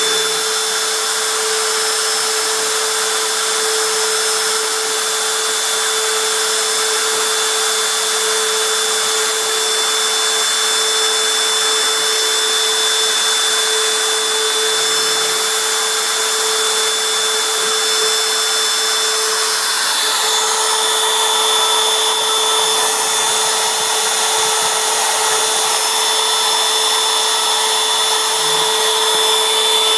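Spindle of a Fireball V90 CNC router running with a steady whine while drilling a copper-clad circuit board. About two-thirds of the way through, the sound turns brighter and louder in its upper range.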